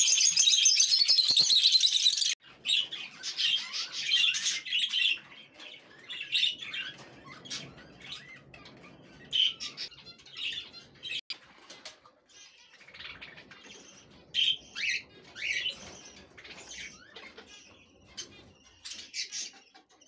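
Budgerigars chirping and chattering while they feed. A dense, loud chatter fills the first two seconds or so and cuts off abruptly, followed by scattered short chirps and bursts of chatter.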